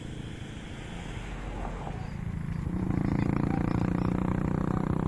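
Motor vehicle engine running steadily with an even, rapid pulsing hum that grows louder about three seconds in.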